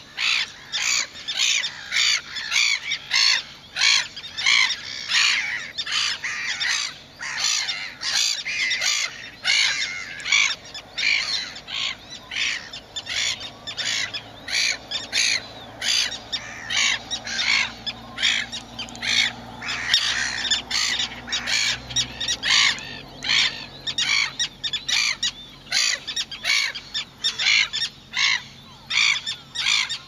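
Gulls calling without pause, harsh short calls repeated two to three times a second and overlapping from several birds.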